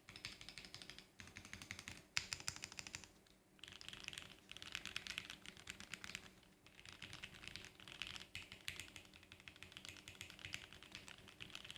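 CA60 mechanical keyboard with Gateron Milky Yellow linear switches being typed on quickly: a fast patter of key strokes in runs, broken by a few short pauses.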